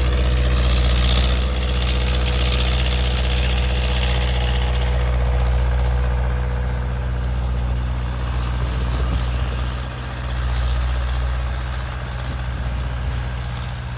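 Cummins 3.3 four-cylinder diesel in a skid steer idling steadily, warming up after a cold start. A high hiss over it fades out about five seconds in.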